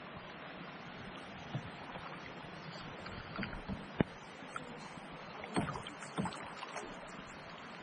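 Canoe on open water: a steady hiss of water and air, broken by a few short knocks and splashes against the canoe. The sharpest knock comes about four seconds in.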